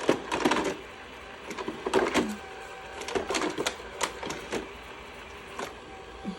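Shark robot vacuum manoeuvring as it tries to line up with its charging dock: irregular mechanical clicks and knocks over a faint steady hum from its motors.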